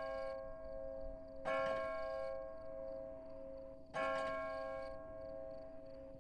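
A church bell striking, three strokes about two and a half seconds apart, each ringing on and fading slowly: typical of a tower clock striking the hour.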